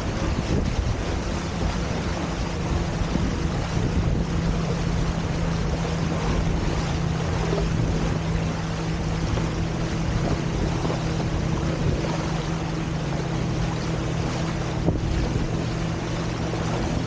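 Wind buffeting the camera microphone and water rushing along the hulls of a Hobie Tiger F18 catamaran under sail. A steady low hum joins in about a second in.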